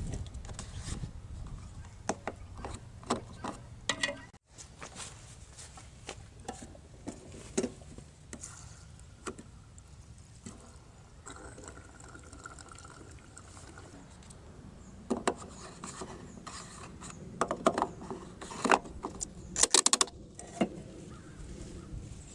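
Irregular clinks, knocks and rubbing of objects being handled, busiest near the end; no engine is running.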